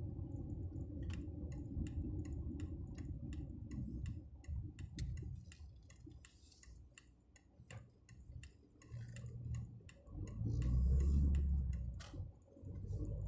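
Car's turn-signal indicator ticking at a steady rhythm inside the cabin, over the low rumble of the engine and tyres, which grows louder near the end.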